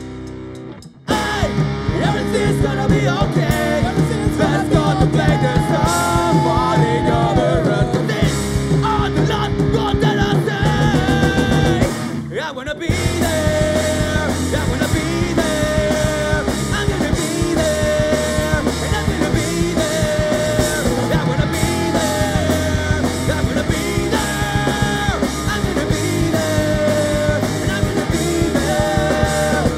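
Live rock band playing: electric guitars, bass and drum kit, with a sung lead vocal. The full band comes in loud about a second in, with a brief drop near the middle.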